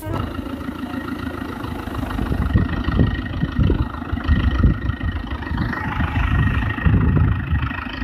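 Forklift engine running steadily with an uneven low rumble and a faint steady high whine.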